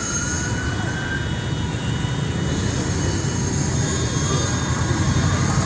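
Steady rumble of motor vehicles, with a faint whine that rises slowly in pitch twice.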